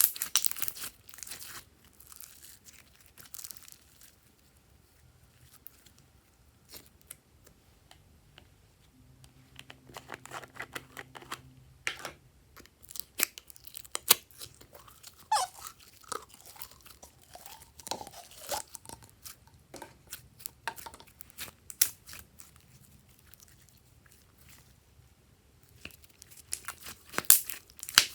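Glossy slime being squished and mixed by hand, giving sticky crackles, clicks and pops. It is busiest at the start and again near the end, with sparser clicks in between.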